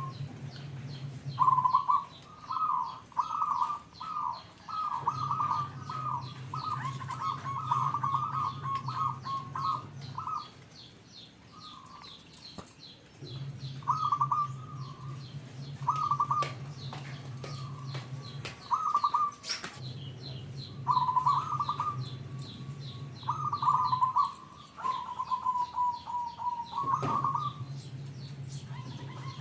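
Zebra dove (perkutut) cooing in repeated bursts of short rolling notes with pauses between them, and a longer drawn-out note near the end. Small birds chirp faintly and rapidly behind it.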